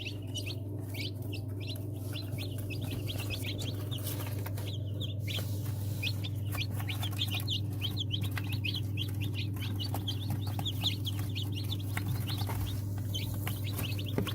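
A group of newly hatched chicken chicks peeping, many short high-pitched cheeps overlapping almost without pause, with a brief lull about five seconds in. A steady low hum runs underneath.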